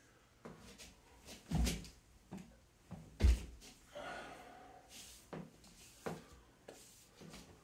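Bare feet landing on the floor with two heavy thumps, from kicking up toward a handstand and dropping back down, followed by lighter footfall knocks as he steps about.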